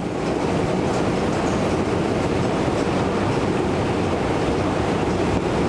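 Steady, unbroken rumble of an underground railway station's ambience, with most of its weight low and a hiss above.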